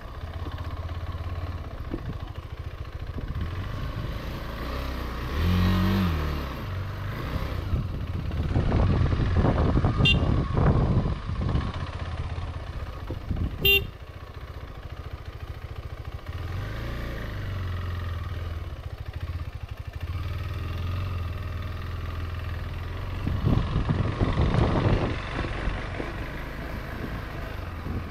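Motorcycle engine running on a rough dirt trail, rising and falling as the throttle is opened and closed, with a short horn beep just before 14 s in.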